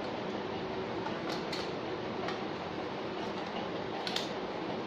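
Light plastic clicks of a battery pack being slotted into a Canon EOS 700D's battery compartment and the camera being handled. There are a few short clicks, the loudest about four seconds in, over a steady fan hum.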